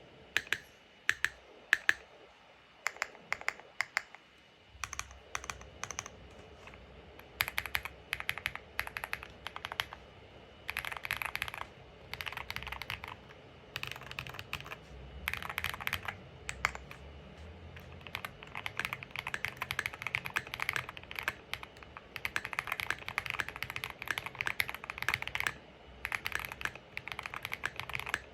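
QK60 60% mechanical keyboard with lubed and filmed Zaku switches and JTK Classic keycaps being typed on. A few single keystrokes at first, then bursts of quick typing that become continuous fast typing over the second half.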